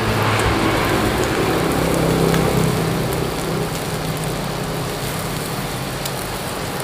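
Meat sizzling steadily on a hot moo kata (Lao-Thai tabletop barbecue) grill pan.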